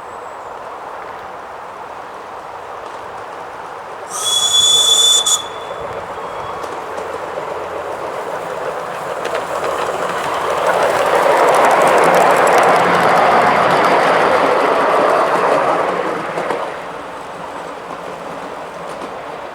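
A 7¼-inch gauge miniature train running past on the track, with a clatter that swells louder in the middle and fades away. About four seconds in, a shrill high whistle sounds once for about a second and a half.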